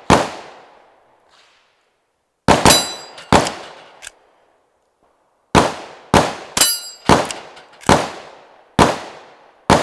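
Henry Pump Action Octagon rimfire rifle firing a string of shots, each a sharp crack. Several are followed by the high metallic ring of a bullet striking a steel plate target. The shots come sparsely at first, then about two a second from about halfway in.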